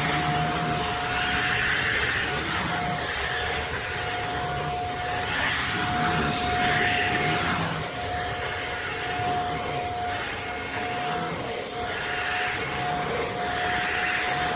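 CFBF handheld mattress vacuum cleaner running, its motor making a steady whine under a loud rush of air. The rush swells and eases about every two seconds, and the sound cuts off suddenly at the end.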